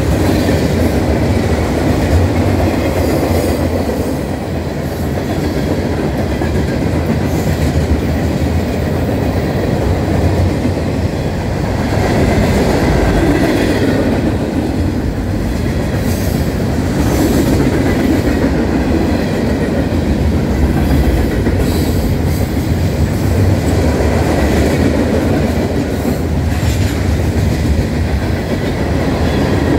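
Freight train cars (covered hoppers, tank cars and boxcars) rolling past close by: a steady, loud rumble of steel wheels on rail, with clickety-clack over the rail joints and short high wheel squeaks here and there.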